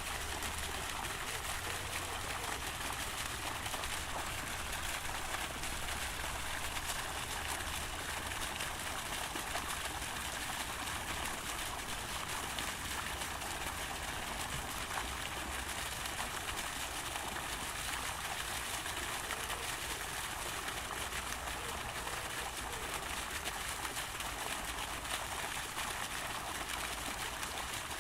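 Park fountain: water falling and splashing in a steady, unbroken rush.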